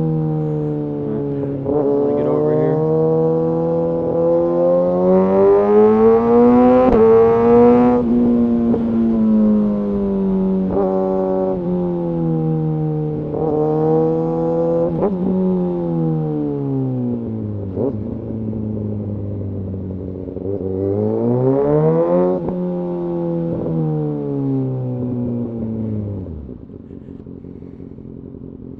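Kawasaki ZX-6R inline-four engine accelerating hard, its pitch climbing through the revs and dropping suddenly at each upshift, several times over. Later it winds down and falls to a quieter, steady low hum near the end.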